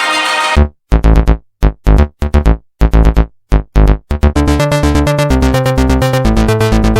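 Electronic background music: a synthesizer track breaks into choppy, punchy notes with deep bass hits and short gaps, then settles into a steady pulsing synth pattern from about four seconds in.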